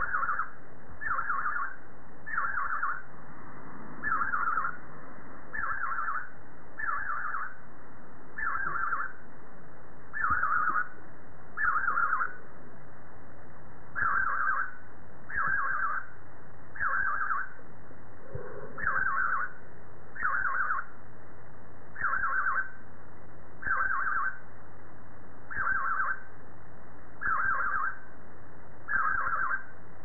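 Budgerigar calling, a short call repeated at a steady pace, about one every second and a half, with one longer pause near the middle.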